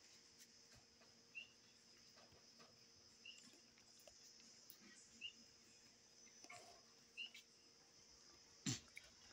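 Faint night ambience: a steady high insect drone with short chirps every second or two, and a single thump near the end.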